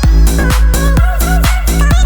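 Background electronic dance music with a steady beat, about two kick-drum strokes a second, over heavy bass.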